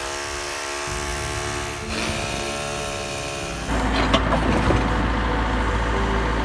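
An engine or motor running steadily; its pitch rises about two seconds in, and from just under four seconds it runs rougher, with a heavy low rumble and a few knocks.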